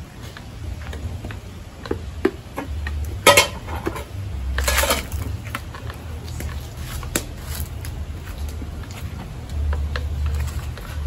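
Cooking pots and utensils clattering: scattered light knocks, a sharp clank about three seconds in and a longer scraping rattle a second later, over a steady low rumble.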